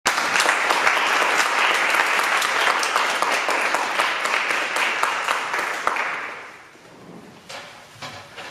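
Audience applauding: steady clapping that dies away about six seconds in, followed by a couple of soft knocks.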